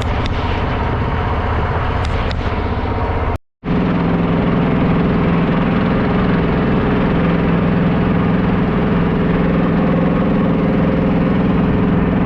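A boat's engine running steadily at a constant speed, heard from on board, with a brief cut to silence about three and a half seconds in before it carries on.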